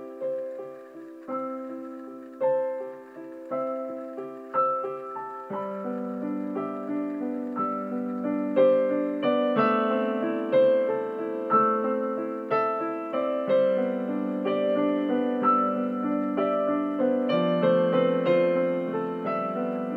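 Solo piano music: a slow, gentle piece of single struck notes and chords, each left to ring and fade, with lower notes joining about a third of the way in.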